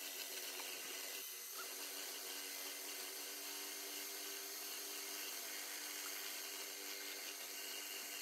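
Electric hand mixer running steadily, its motor giving an even hum as the beaters whip a runny mixture in a glass bowl.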